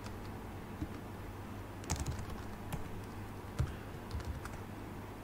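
Computer keyboard keystrokes: about half a dozen separate taps, beginning about two seconds in.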